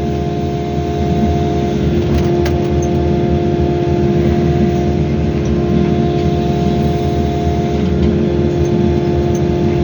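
Excavator's diesel engine running steadily at working revs, with a constant whine over the low engine hum.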